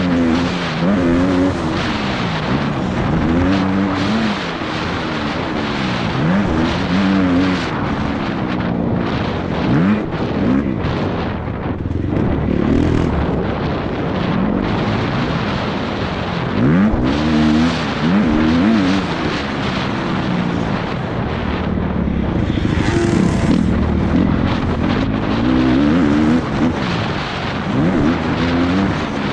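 Motocross bike engine racing, revving up and dropping back again and again through gear changes and throttle work, over a steady rush of noise.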